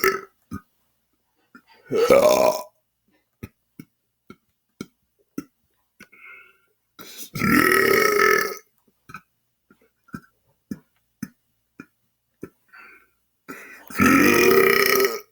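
A man belching letters of the alphabet: three long, loud belches, near the start, in the middle and near the end, each with a pitch that glides like a spoken vowel. Short faint clicks fall between them.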